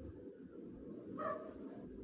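A single short animal call about a second in, over a steady high-pitched whine and low background noise.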